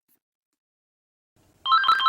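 Silence, then about a second and a half in, an electronic telephone ringtone starts, trilling rapidly back and forth between two pitches.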